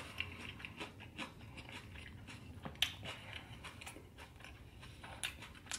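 A person chewing food, with a scatter of small mouth clicks and smacks; sharper clicks come about three seconds in and again near the end.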